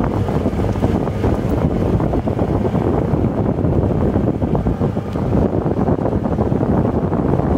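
Golf cart driving along a freshly graded unpaved dirt road: tyres rolling over the loose, uneven surface and the cart rattling, with wind buffeting the microphone.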